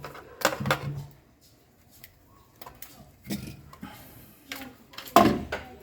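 Small hard objects knocking and clinking on a workbench as tools are handled, a few separate knocks with the loudest near the end.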